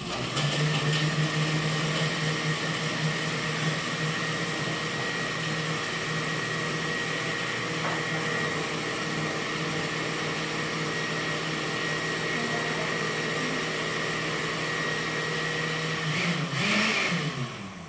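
Electric blender running steadily as it blends soursop, milk and ice. Near the end the motor sound shifts in pitch and stops.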